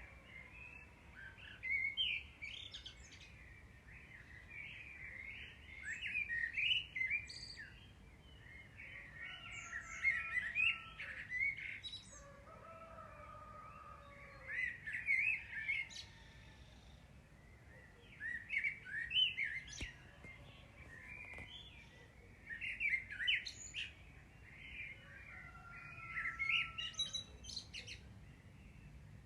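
Bird chirping in repeated short flurries every few seconds, with a few lower whistled notes in between.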